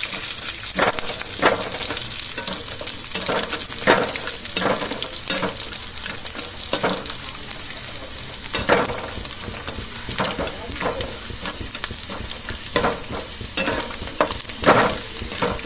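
Oil sizzling in a metal kadai as peanuts, chopped onion, curry leaves and green chilli fry, with a metal spatula scraping and stirring through them about once a second.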